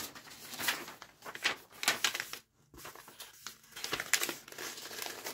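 Paper crinkling and rustling as it is handled and wrapped around an object, in a run of irregular crackles with a couple of short pauses.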